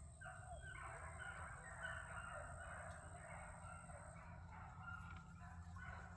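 A pack of beagles baying faintly in the distance, many voices overlapping without a break: hounds in full cry running a rabbit track.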